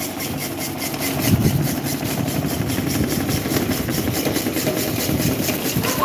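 Electric fans running: a steady motor hum with a whir of moving air, and a fast, even pulsing in the high hiss.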